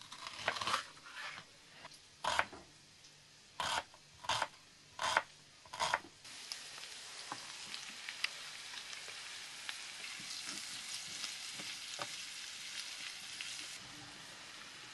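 A knife slicing an onion on a wooden cutting board, about eight crisp cuts. Then, from about six seconds in, steady sizzling of pork, carrot and onion frying in oil in a pan, easing off near the end.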